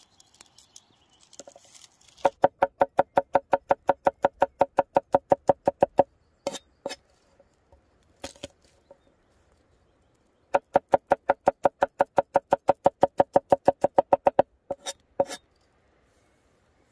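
Kitchen knife rapidly chopping garlic on a wooden cutting board: two runs of about seven quick chops a second, each lasting about four seconds, and each chop rings briefly. A few single chops fall between the runs and near the end.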